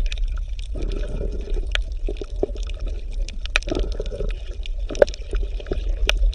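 Underwater ambience: bubbling, gurgling water over a steady low rumble, with many scattered clicks and pops.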